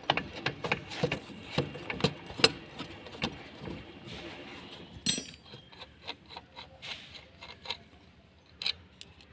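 Metal tool clicks and knocks while undoing the 24 mm rear axle nut on a Honda Dio scooter: quick irregular clicking for the first few seconds, one louder knock about five seconds in, then only scattered faint clicks.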